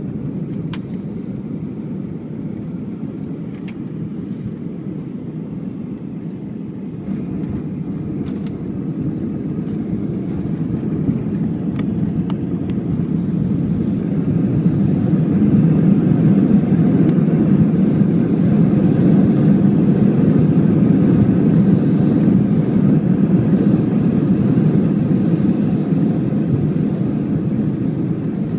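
Airbus A320 cabin noise during the landing rollout. A loud, steady rush of engine and rolling noise swells from about a quarter of the way in to its loudest past the middle, then eases a little near the end, as the engines run up in reverse thrust to slow the jet.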